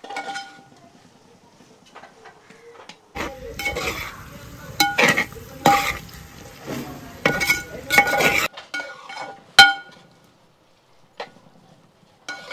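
Spatula stirring and scraping pieces of beef in a large metal pot: repeated clinks and scrapes that ring on the pot, busiest through the middle with a frying sizzle underneath, and one last sharp clink before it goes quiet.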